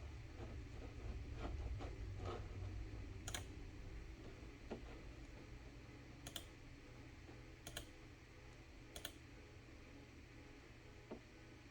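Computer keys clicked one at a time, a sharp click every second or so with a few softer ones early on, over a low steady hum.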